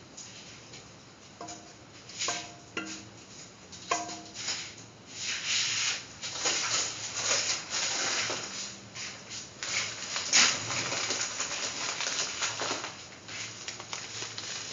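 Mung bean and vermicelli mixture heating in a pan, with a few short knocks in the first few seconds, then a dense crackle of bubbling and sizzling from about five seconds in as it comes to the boil.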